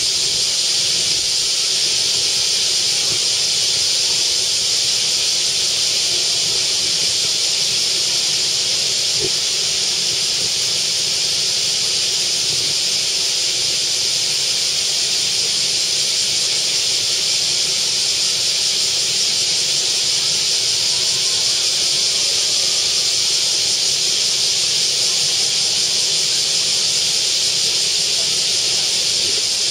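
A loud, steady high-pitched hiss that does not change at all.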